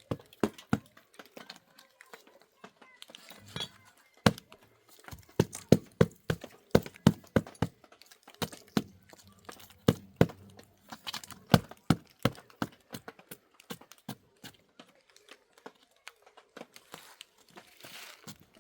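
A quick, irregular series of sharp knocks and taps, several a second, thickest in the middle and thinning out toward the end.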